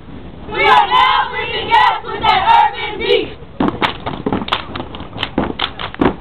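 Step team stepping: a group of voices shouts a chant, then about halfway through gives way to a fast run of sharp stomps and claps, several hits a second.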